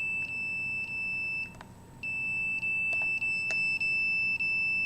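Signal detector sounding a steady high-pitched beep tone, broken by short gaps about twice a second. It cuts out for about half a second roughly 1.5 s in, then resumes. It is reacting to wireless signals from a nearby cell phone that is downloading a video.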